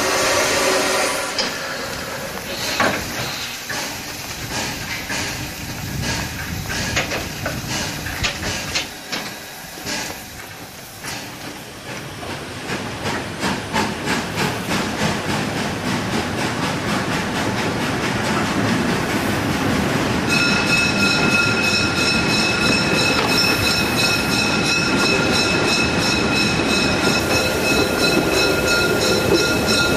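Narrow-gauge steam train pulling away, heard from a carriage. A run of beats quickens as it gathers speed, then it settles into steady running noise with a steady high whine about two-thirds of the way in.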